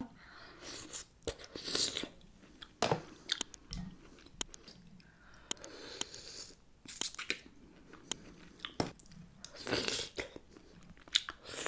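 Close-miked eating sounds: a person biting and chewing sauce-drenched seafood, with irregular wet smacks and sharp little clicks.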